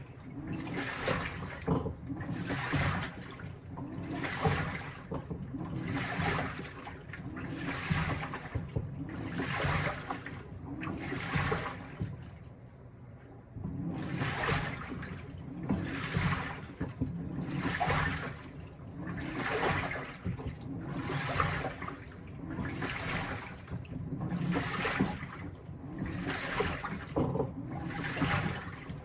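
Panasonic top-loading washing machine washing: water and laundry slosh in regular swishes about every second and a half to two seconds as the pulsator churns back and forth, with one short pause a little before the middle.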